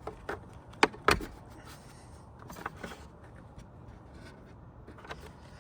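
Scattered clicks and knocks from hand work on a truck side mirror's plastic turn-signal lens housing, with two sharp clicks about a second in and fainter taps later.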